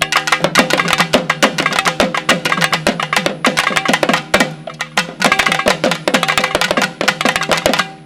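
Naiyandi melam drums playing a fast, driving beat over a steady held drone, with a brief break about four seconds in and another near the end.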